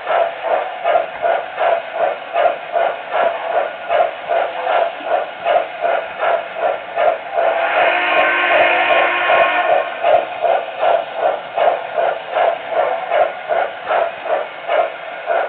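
MTH model steam locomotive's onboard sound system chuffing in an even rhythm of about two and a half beats a second, with a steam whistle blown for about two seconds near the middle.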